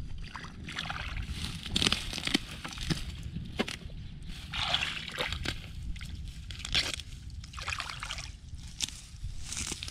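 Hands groping and sloshing through shallow muddy water and mud, feeling for a catfish, in a series of irregular splashy bursts with small wet clicks, over a steady low rumble.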